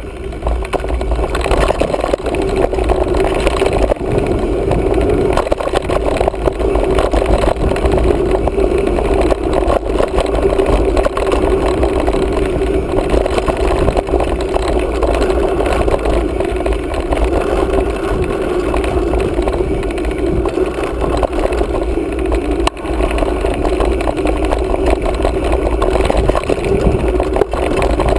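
Mountain bike riding along a dry dirt singletrack: steady rushing wind over the camera microphone with tyre rumble and a constant patter of small knocks and rattles from the bike over the rough trail.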